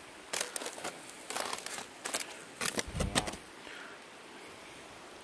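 Several short rustling and clattering handling noises, five or so sharp ones over a few seconds, the loudest about three seconds in.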